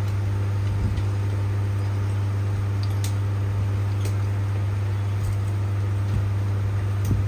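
Steady hum of electric fans running, with a few faint clicks of tools handled on metal.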